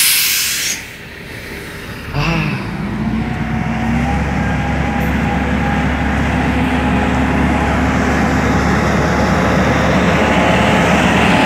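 A short, loud hiss of air at the start, then from about two seconds in a semi-truck's diesel engine revs up and runs steadily under load as the tractor-trailer creeps past, slowly growing louder.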